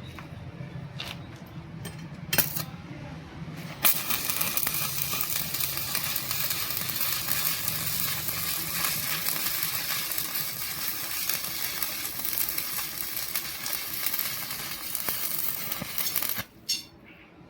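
A few sharp clicks, then a stick-welding arc crackling and sizzling steadily for about twelve seconds before it cuts off suddenly near the end.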